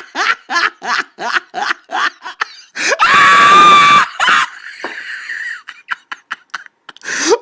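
Hysterical laughter in quick rhythmic bursts, about three a second, breaking into a loud, high-pitched shrieking laugh held for about a second, then short gasping bursts and a rising shriek near the end.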